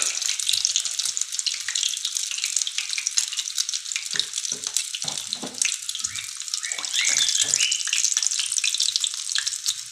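Hot oil sizzling and crackling steadily as egg-coated potato patties (aloo tikki) shallow-fry in a frying pan, with a few short soft knocks in the middle.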